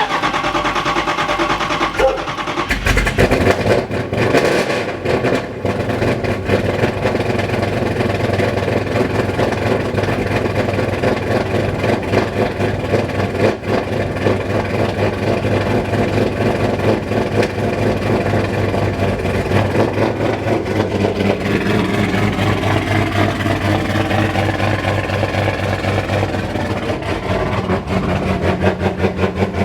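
Dodge Scat Pack's 392 Hemi V8, fitted with an aggressive aftermarket cam, catching about two to three seconds in and then running with a rhythmic pulse, the note shifting about two-thirds of the way through. It can't yet idle on its own on the new tune, so it is kept alive on the gas pedal.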